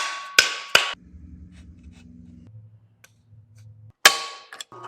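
Steel fixture-table parts being struck: three sharp ringing metal clanks in about a second, then another near the end, with a low steady hum in between.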